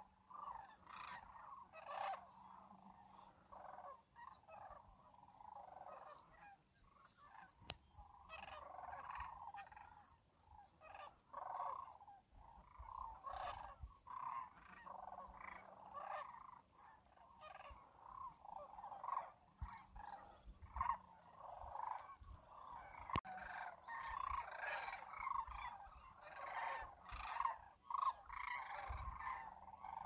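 A large flock of sandhill cranes calling, many calls overlapping in a continuous chorus. A single sharp click comes about eight seconds in.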